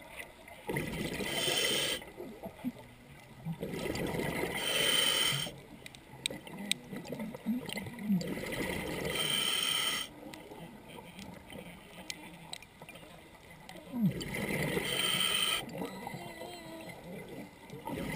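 Scuba diver breathing through a regulator underwater: four loud bursts of exhaled bubbles a few seconds apart, with quieter inhalations between them.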